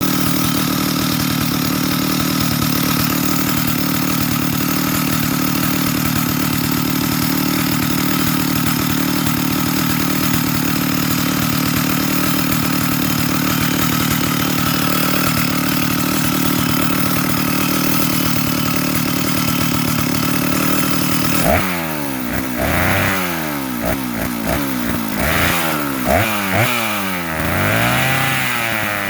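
Vintage Stihl 075 two-stroke chainsaw idling steadily, then, about three quarters of the way through, revved up and down in a series of quick throttle blips.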